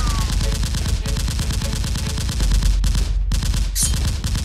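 Rapid automatic gunfire sound effect, a dense stream of shots that stops about three seconds in, followed by a few single shots.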